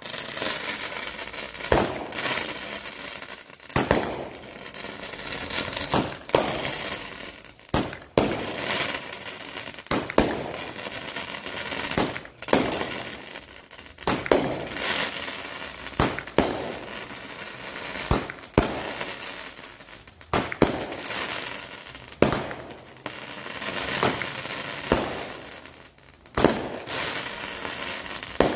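Consumer aerial fireworks firing in a regular sequence: a sharp bang roughly every two seconds, each followed by fading crackling.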